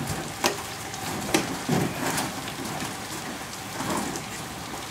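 Steady hiss of rain, broken by a few sharp knocks and bumps in the first half as a refrigerator is shoved through a doorway.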